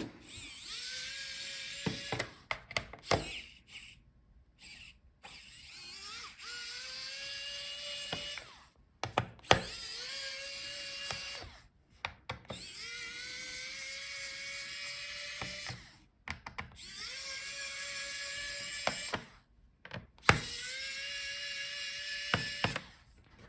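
Small electric screwdriver running in a series of short spells of a few seconds each, its whine rising slightly in pitch as each spell starts, with clicks between: it is backing out the bottom-case screws of a laptop one after another.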